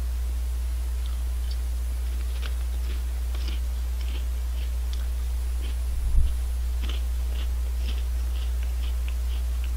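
Mouth-close crunching of Honey Tong Tong potato snack chips being chewed: a run of small crisp crackles. A steady low electrical hum runs under it, and a single low thump comes about six seconds in.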